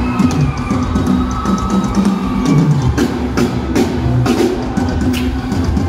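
Live band playing instrumental music through the stage sound system: a drum kit with bass drum and snare keeping a steady beat under bass, guitar and keyboard.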